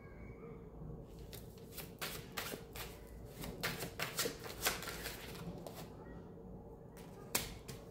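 A deck of cards being shuffled and handled by hand: a faint, irregular run of light card snaps and flicks.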